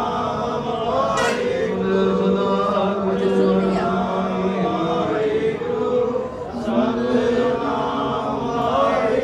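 A congregation singing Sikh devotional kirtan together, many voices chanting in unison.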